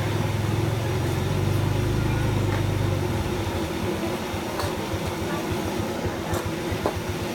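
Gas burner under a wok of deep-frying chicken running with a steady low rumble that turns into a fast flutter about three seconds in, over the hiss of the hot oil. There are a few sharp clicks of the metal ladle against the wok in the second half.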